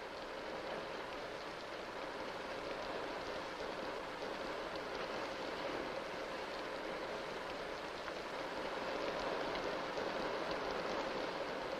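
Steady rain falling, an even patter.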